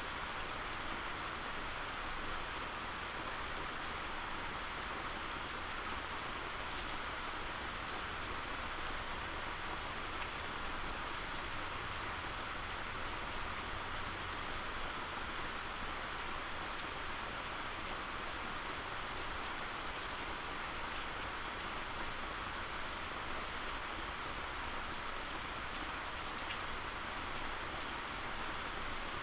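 Steady rain falling and pattering on surfaces, an even hiss of many drops.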